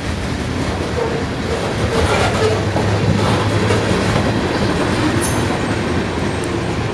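Freight train's last cars, covered hoppers and a tank car, rolling past on the rails with steel-wheel rail noise that swells a little in the middle and stays loud to the end.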